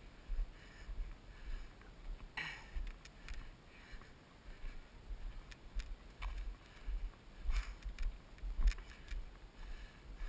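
Muffled rumble and knocks from a body-worn GoPro in its case as the wearer moves on foot down a rocky trail, with a few sharp scuffs of footsteps, the strongest about two seconds in.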